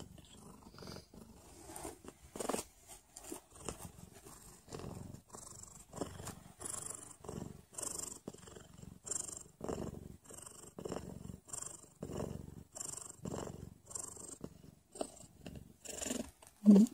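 Heavily pregnant sphynx cat, close to giving birth, purring in soft pulses about once a second. Near the end a brief, louder vocal sound cuts in.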